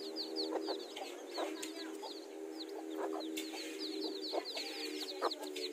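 A brood of young chicks peeping continually, many high, falling peeps a second, while the mother hen gives short low clucks among them.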